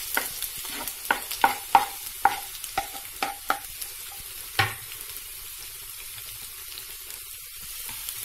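Sliced onion sizzling in hot oil in a frying pan as it is scraped off a wooden cutting board with a knife: a quick run of sharp taps over the first three and a half seconds, then one louder knock as the board is put down on the counter. After that, steady frying sizzle.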